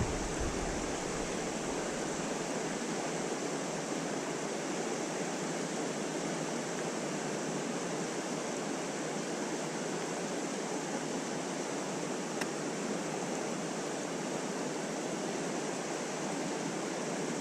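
Steady rush of flowing creek water, with one brief click about twelve seconds in.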